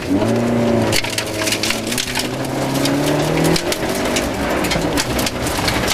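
Rover 214 rally car's engine pulling hard, revs rising steadily, then dropping at a gear change about three and a half seconds in, while loose gravel rattles and clatters against the underbody and wheel arches.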